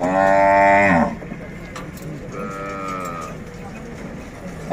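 Cattle mooing: a loud moo in the first second that drops in pitch as it ends, then a quieter, shorter moo a couple of seconds later.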